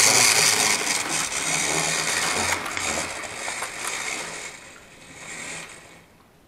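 Model train running past on the track, its locomotive's motor giving a loud, noisy whir with scattered clicks, fading away as the train moves off about five seconds in.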